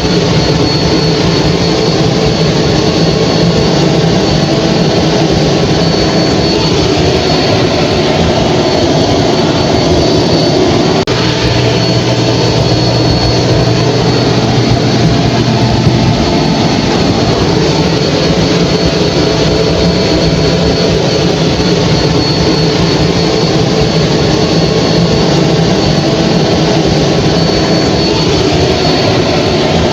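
Hair dryer running steadily: a constant rush of air with a thin, steady high whine. A low hum comes in for a few seconds about a third of the way through.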